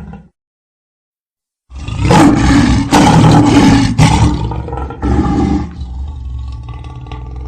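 A large wild animal roaring loudly and roughly, beginning after a second and a half of silence. The roar is loudest in its first few seconds, then drops to a lower, quieter rumbling.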